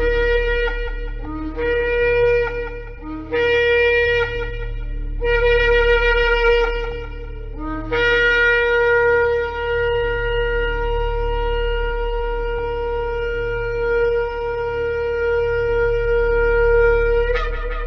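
Shofar (ram's horn) blowing a series of short blasts, each starting on a lower note and jumping up to a higher one, then one long held blast that ends with a brief upward break, over a steady low hum.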